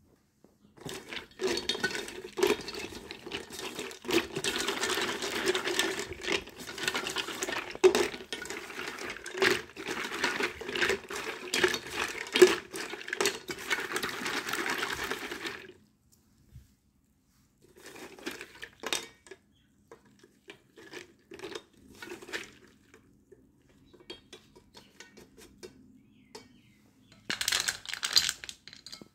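Slate pencils being scrubbed together by hand in water in a stainless steel bowl: sloshing and splashing with the sticks clicking against each other and the steel, for about fifteen seconds. After a pause come scattered clicks of the wet pencils being handled, and a short clattering burst near the end.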